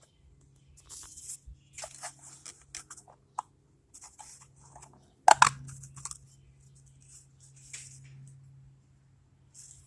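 Hands working on a small engine mixer (carburetor): scraping, rustling and light clicks of parts being handled, with one loud sharp knock a little over five seconds in. A faint steady hum runs underneath.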